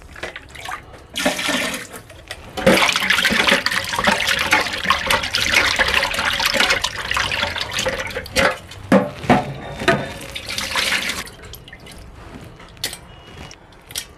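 Running water splashing over lote fish (Bombay duck) as they are rinsed clean by hand. A short gush comes first, then a long steady run that cuts off about eleven seconds in, leaving a few light knocks.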